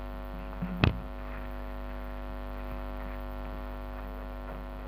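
Steady electrical mains hum, a stack of even steady tones, with one sharp click a little under a second in.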